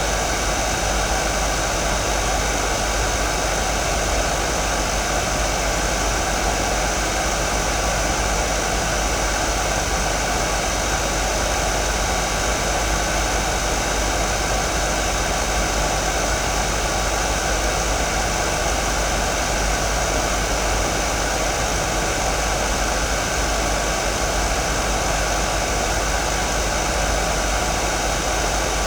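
Hair dryer running steadily: an even rush of blown air with a few faint steady tones and a low hum underneath, unchanging throughout.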